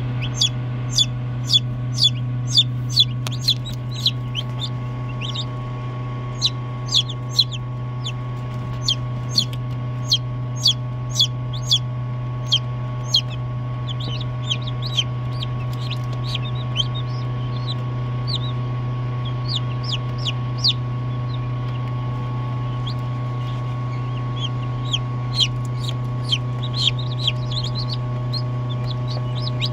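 Newly hatched chicks peeping: runs of short, high peeps about two a second, with pauses, over a steady low hum from the egg incubator.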